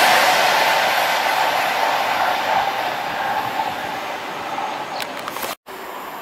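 Class 390 Pendolino electric train passing on the main line, the rush of its wheels on the rails fading steadily as it goes away. About five and a half seconds in the sound breaks off at an edit, and a fainter steady hum follows.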